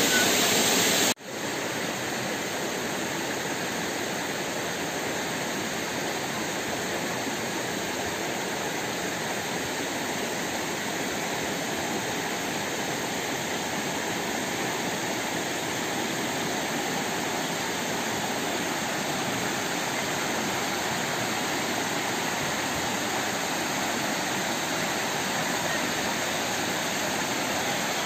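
Mumlava waterfall rushing steadily as the river pours over broad rock slabs. About a second in there is a brief break where the recording cuts, and the rush then carries on slightly quieter.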